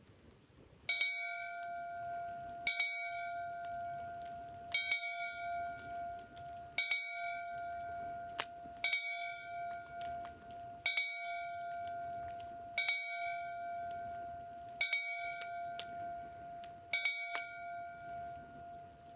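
A metal bell rung by hand, struck nine times at an even pace of about one stroke every two seconds. Each stroke gives a bright clang, and the ringing tone carries on between strokes. It is the bell that announces the start of the nightly campfire.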